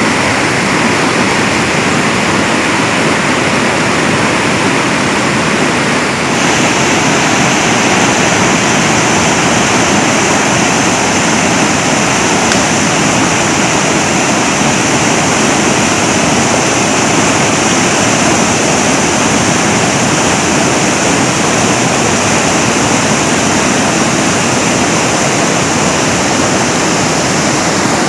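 Steady rushing water noise, loud and even. A high, steady hiss joins in about six seconds in.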